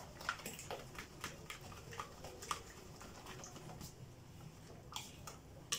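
Wire whisk beating lumpy crêpe batter, its wires clicking and tapping against the side of the bowl in quick, irregular strokes, several a second.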